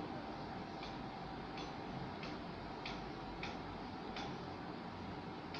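Felt-tip marker drawing on a whiteboard: faint short ticks, unevenly spaced about one a second or a little faster, as the strokes are made. A faint steady hum lies under them.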